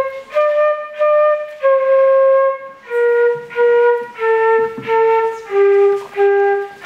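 A child playing a slow, simple melody on a concert flute: separate tongued notes of about half a second each, the later ones stepping down in pitch in repeated pairs.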